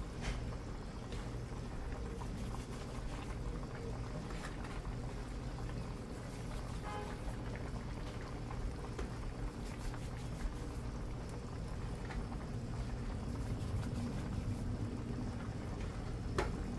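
Pot of brown stew pig trotters bubbling steadily on the stove, over a low steady hum, with a few faint clicks and one sharper click near the end.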